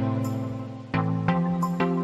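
Background music: soft new-age instrumental with plucked or struck notes about once a second.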